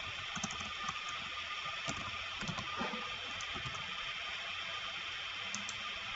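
A handful of light computer keyboard keystrokes and mouse clicks, scattered and irregular, over a steady hiss.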